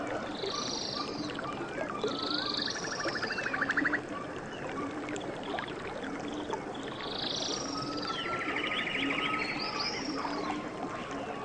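Nature soundscape of birds calling: short swooping calls and buzzy rapid trills every second or two, over a low call repeated in short notes and a steady background hiss.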